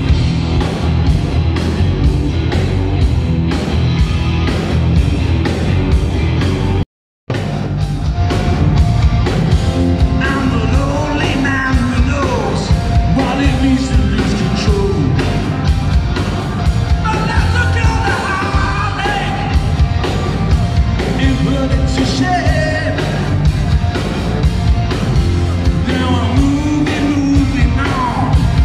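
Live rock band playing loud: electric guitars, bass and drums with a sung lead vocal. The sound drops out completely for a split second about seven seconds in.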